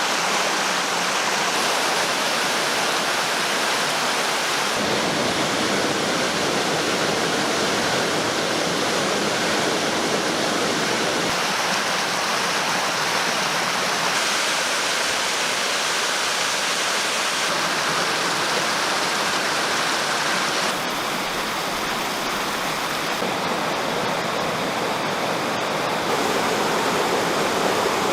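Steady rushing water, loud and even, whose tone changes abruptly every few seconds.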